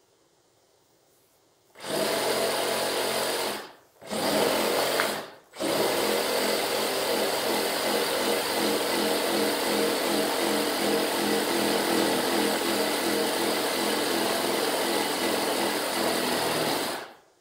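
Makita reciprocating saw cutting a curve through a thick wooden slab. It starts about two seconds in, stops twice briefly, then runs steadily for about eleven seconds before cutting off near the end.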